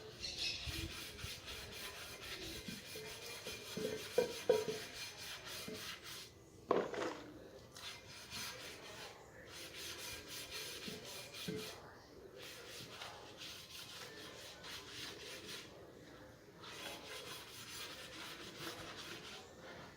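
Rapid, steady back-and-forth rubbing or rasping strokes in runs, broken by short pauses, with a few louder knocks about four and seven seconds in.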